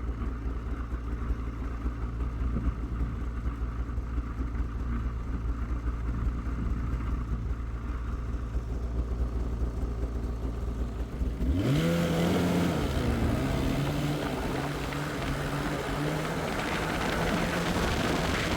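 Snowmobile engine running, at first a low muffled rumble; about two thirds of the way through the sound changes suddenly and the engine revs up with a rising pitch, then runs on at speed with its pitch wavering.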